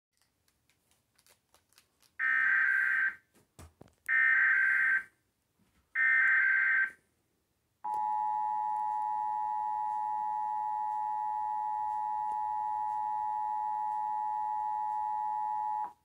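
Emergency Alert System broadcast played over a TV: three one-second screeching bursts of digital SAME header data, about two seconds apart, then the steady two-tone EAS attention signal for about eight seconds, cutting off abruptly. This is the tone sequence that opens a Required Monthly Test.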